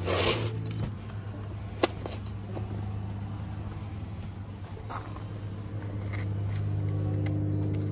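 Potting soil scooped with a small trowel and dropped into a plastic seedling cell pack, a short rustling pour at the start and a sharp click a little under two seconds in. Under it runs a steady low motor hum that grows louder near the end.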